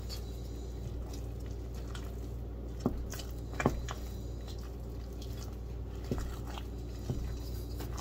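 Wooden spatula stirring and twisting cooked semolina fufu in a glass bowl: soft squishing of the thick, soft dough, with a few sharp knocks of the spatula against the bowl, over a steady low hum.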